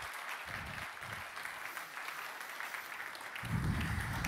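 Audience applauding steadily, with a low thumping near the end.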